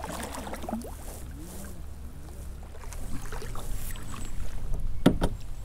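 Steady low wind rumble on the microphone aboard a fishing kayak on open water. About five seconds in come two sharp knocks close together, the loudest sounds, as something strikes the kayak.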